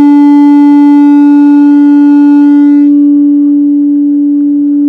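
Public-address loudspeaker feedback: a loud, steady howl held at one pitch with a row of overtones, the higher overtones dropping away about three seconds in.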